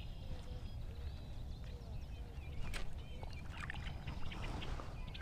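Quiet outdoor ambience aboard a kayak on a pond: a steady low rumble with faint bird chirps, and a few light clicks about halfway through.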